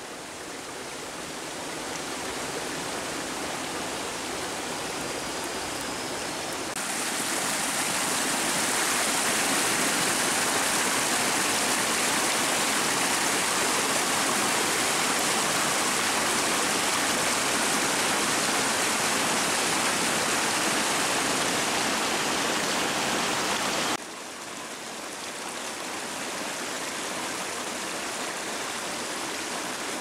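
Waterfall and stream rushing in a steady, even roar of falling water. It grows louder about a quarter of the way in and drops back to a softer level later on.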